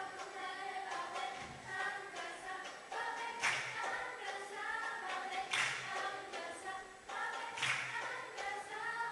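Girls' choir singing a cappella, with a sharp clap-like hit on the beat about every two seconds.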